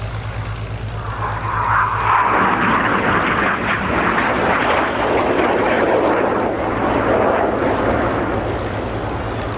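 Jet noise of a Red Arrows BAE Hawk T1, its Adour turbofan heard as the aircraft flies past trailing display smoke. The rushing noise swells about two seconds in, stays loud through the middle and eases off near the end.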